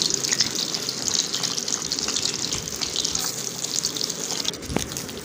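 Cubes of cooked egg sizzling and crackling in hot mustard oil in a kadhai, shallow-frying to set a crust. One sharp knock near the end.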